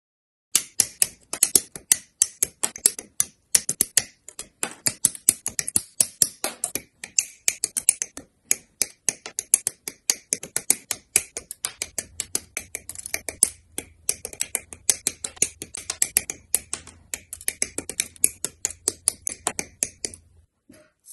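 Rapid, irregular sharp clicks and snips of hard plastic, several a second: Gunpla model-kit parts being cut from their runners and clicked into place.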